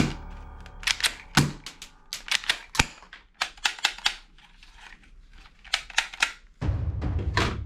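Toy guns clicking: an irregular series of sharp plastic-and-metal clicks and snaps, thinning out midway, with a low steady hum coming in near the end.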